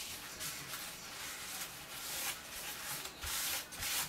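Hand and paper towel rubbing and pressing over a paper envelope in a series of hissy strokes, smoothing down a glued piece that keeps peeling off.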